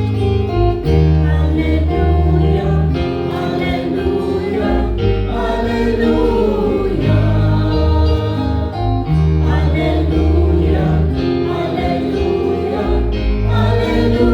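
Church choir singing with held, sustained notes.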